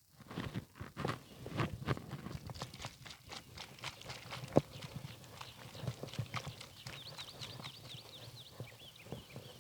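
A horse's hooves stepping and shuffling on hard ground in an irregular clip-clop, with one sharper knock about halfway through. A run of short high chirps comes in near the end.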